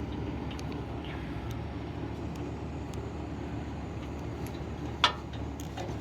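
A wrench working the carburetor bolts on a lawn mower: faint ticks over a steady low background hum, with one sharp click about five seconds in.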